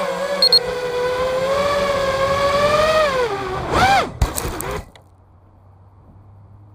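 FPV quadcopter's brushless motors whining. The pitch wavers with the throttle, dips, then swoops down and up sharply with a click, and the sound stops abruptly about five seconds in, leaving only a faint low hum.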